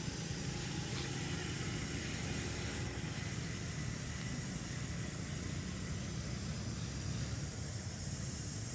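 Steady outdoor background noise: a low rumble with hiss underneath, even throughout, with no distinct calls or knocks standing out.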